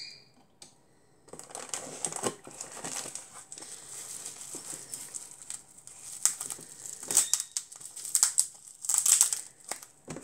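Bubble wrap crinkling and crackling as it is pulled and worked open by hand to free a packaged model car. It starts about a second in, with louder sharp crackles in the second half.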